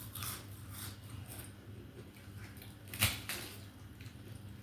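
Crunching on crisp fried papad while eating: a few short, crackly crunches, the loudest about three seconds in.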